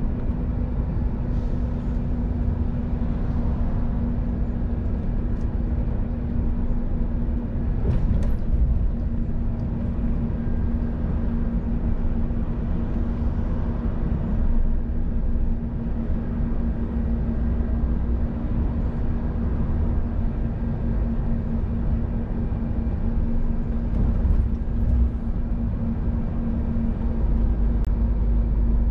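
Scania R500 truck driving on a highway, heard from inside the cab: the diesel engine and tyres make a steady low drone with a constant hum. There is a single short click about eight seconds in.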